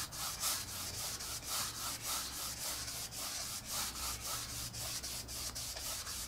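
Stiff paintbrush scrubbing paint onto a model aircraft wing in quick back-and-forth strokes, about four a second: a first coat of the top-surface colour being brushed out.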